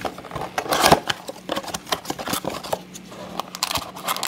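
A cardboard trading-card blaster box being opened by hand: a run of scraping, crinkling and sharp clicks from the cardboard flap and its contents, loudest about a second in.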